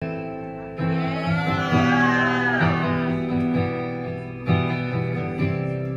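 Live guitar playing sustained chords as the intro of a song, the chord changing about every two seconds.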